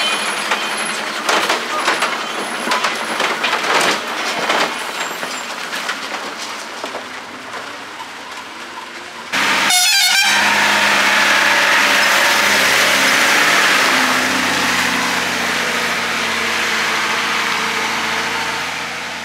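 Heavy goods trucks on a steep hairpin road: diesel engines running, with knocks and rattles in the first few seconds and horns sounding. About halfway through the sound jumps suddenly to a loud steady engine and horn as a truck comes down the bend close by, then eases off.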